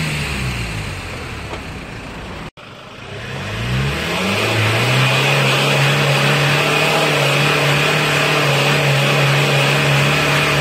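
Diesel car engine heard at the tailpipe: its revs fall away over the first couple of seconds, then after a sudden break it is revved up and held at a steady high speed for several seconds, as in a tailpipe smoke check.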